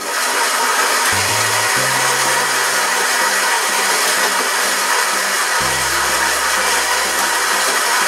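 Philips bean-to-cup coffee machine's built-in grinder grinding coffee beans: a loud, steady grinding whir that starts abruptly, 'what a noise'. Background music with a low bass line plays underneath.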